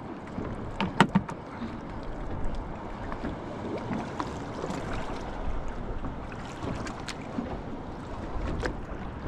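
Sea water lapping against a small boat's hull, with light wind and a few short sharp knocks, the loudest about a second in.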